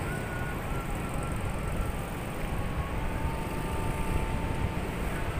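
Wind rumbling and buffeting on the microphone, with a small quad bike engine running under it.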